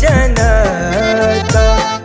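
A male voice sings a noha, a Shia mourning chant, in a wavering melodic line. Under it runs a steady beat of deep bass thuds and sharp percussion hits.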